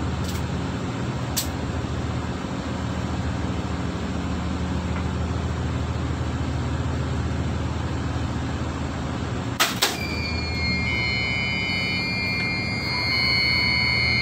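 Steady low hum of the ship's running generator machinery in the switchboard room. About ten seconds in there is a sharp double clack as the diesel generator's breaker trips, and steady high-pitched alarm buzzer tones start straight after and keep sounding.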